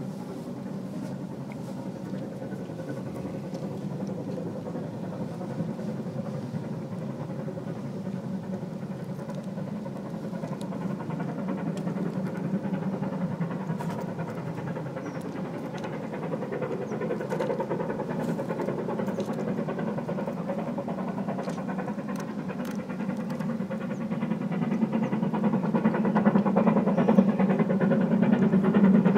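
BR Standard Class 7 Pacific steam locomotive No. 70000 Britannia working a train as it approaches, a steady heavy drone that grows clearly louder over the last few seconds.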